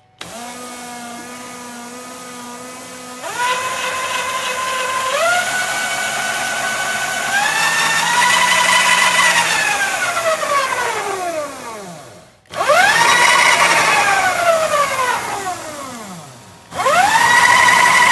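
Electric drive motor of a kids' Razor quad, run from a new 500 W controller on a 52 V battery, whining as the throttle is worked. The whine climbs in steps over the first eight seconds, winds down almost to a stop about twelve seconds in, revs up and dies away again, then rises once more near the end. The rise and fall with the throttle show that the new controller is driving the motor.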